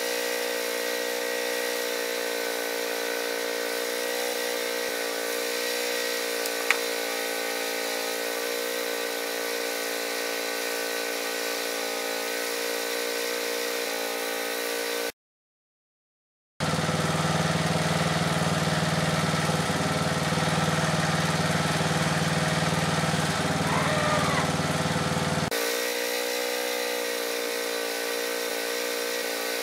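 Portable bandsaw sawmill's engine running at a steady speed. About halfway through, the sound cuts out for a second and a half, then comes back louder and lower for about nine seconds before returning to the earlier steady running.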